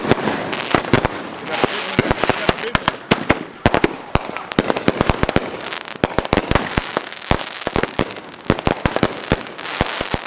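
Fireworks going off in a dense barrage: many sharp bangs, several a second, with crackling hiss between them.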